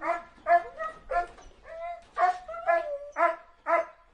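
Dog barking in a quick, regular series of about eight barks, roughly two a second.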